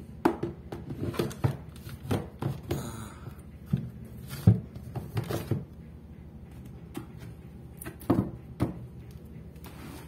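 Survival gear and a plastic first-aid pack being put back into a lifeboat's metal equipment box: a run of clattering knocks and rustles, the loudest about halfway through, then two more knocks near the end.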